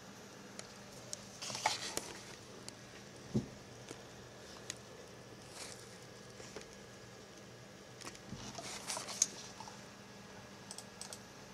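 Light scattered clicks and two short bursts of rustling, about one and a half seconds in and again about eight to nine seconds in, over a faint steady computer hum.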